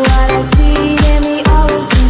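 Background music with a steady kick-drum beat, about two beats a second, under held synth notes.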